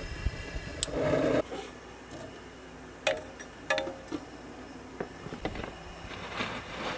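A propane camp-stove burner lights with a short rush about a second in. It is followed by sharp clinks and knocks of glass pint canning jars with metal lids being set into an aluminium pressure canner, some of them ringing briefly.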